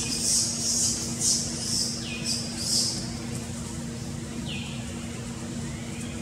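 Forest ambience: a high-pitched pulsing chirr repeating about twice a second, fading out about three seconds in, and two short falling calls.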